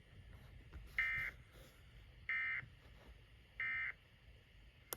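Three short bursts of Emergency Alert System SAME data tones from NOAA Weather Radio, each about a third of a second long and about 1.3 seconds apart. This is the End-of-Message (NNNN) signal that closes a warning broadcast.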